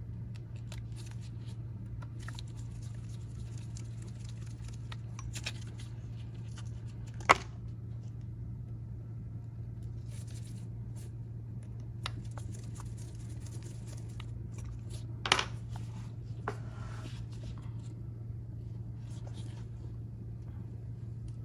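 Faint small clicks and scrapes of a precision screwdriver and the phone being handled as pentalobe screws are driven into the bottom of an iPhone, over a steady low hum. Two sharper clicks stand out, about 7 and 15 seconds in.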